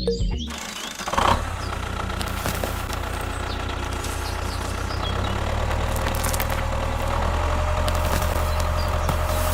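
A small engine catches with a sharp burst about a second in, then runs steadily, growing slightly louder toward the end.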